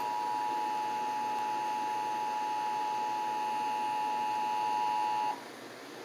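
Emergency Alert System attention signal, the steady two-tone alert heard through a television speaker, which cuts off about five seconds in. It announces that an emergency voice message follows, here a severe thunderstorm warning.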